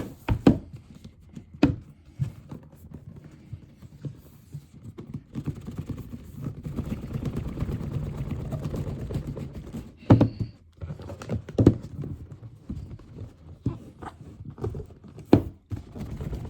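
Packaging of a boxed action figure being handled and pulled apart: plastic and cardboard rustling and scraping, with several sharp knocks and clacks as parts are worked free.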